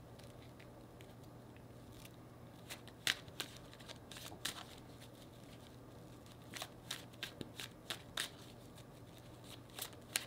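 Tarot cards being shuffled by hand: faint, irregular clicks and snaps of card edges, starting about three seconds in.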